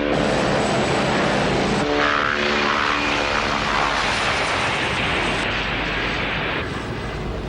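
Westland Wasp helicopter in flight, its rotor and turbine engine making a steady, loud rushing noise that shifts abruptly in character a few times.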